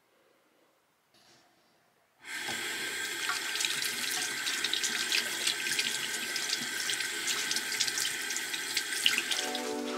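Tap water running into a bathroom sink and splashing over hands being washed, starting suddenly about two seconds in.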